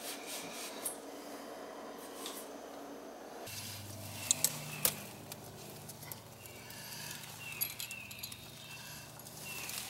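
Hand tools clinking and rattling as they are rummaged in a toolbox. After that comes a steady low hum with a few sharp metallic taps as a tool works at an outside sill faucet on the house wall.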